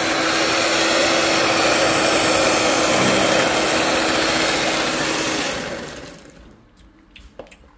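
Electric hand mixer running steadily, its twin beaters whisking cookie dough in a bowl, then winding down and stopping about six seconds in. A few faint knocks follow.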